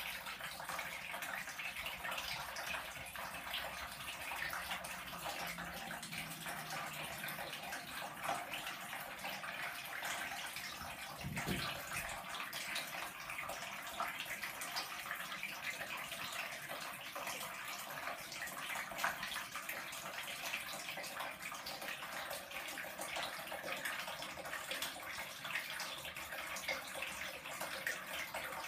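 Thin stream of water running steadily from a bathtub tap and splashing into the empty tub.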